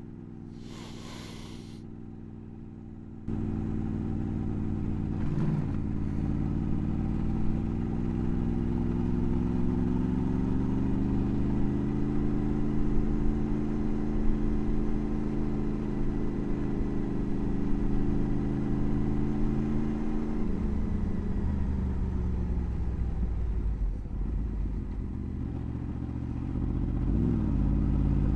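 Motorcycle engine running under way, softer for the first three seconds, then pulling with its pitch rising slowly. It falls away about two-thirds of the way through and picks up again near the end.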